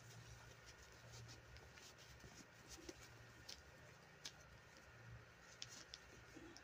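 Near silence: a few faint, scattered clicks and rustles of a doll and its clothes being handled, over a faint low hum.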